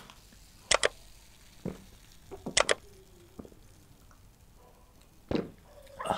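Close-up gulps of a drink being swallowed from a glass mug: a handful of short click-like swallows, some in quick pairs, spaced about a second apart.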